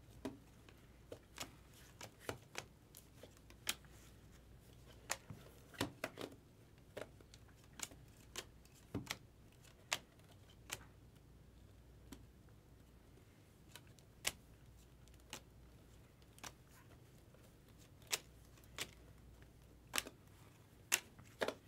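Stiff chrome trading cards being flipped one at a time off a stack held in the hand: soft, irregular clicks as each card slides off and snaps against the next, about one or two a second, over a faint low hum.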